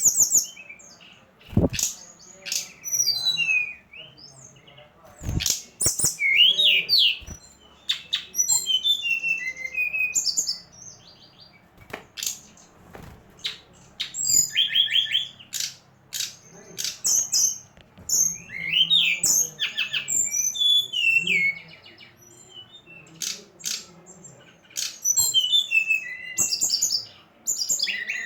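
A songbird singing in bursts of rapid chirps and trills, repeated phrase after phrase with short pauses. This is a lure song (suara pancingan) of the kind played to cagebirds to get them to sing. A few sharp clicks sound in between.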